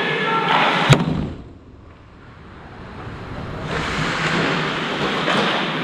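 Noisy ice-hockey rink ambience with one sharp crack about a second in. The sound then falls much quieter for a couple of seconds before the rink noise builds back.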